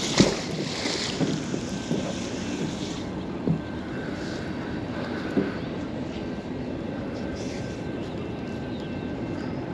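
A heavy fishing magnet splashes into the river just after the start, with a hiss of spray for a couple of seconds. After that, a steady low rumble with wind on the microphone and a few light knocks.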